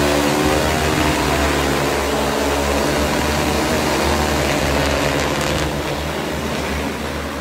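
A DJI multi-rotor agricultural spreading drone flying close overhead, its propellers humming steadily, with a pitch that shifts as it manoeuvres. The sound grows quieter over the last couple of seconds as the drone moves away.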